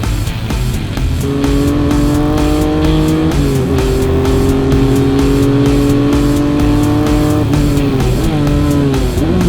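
Rock background music with a steady drum beat and a long held, whining tone that bends down and back up near the end.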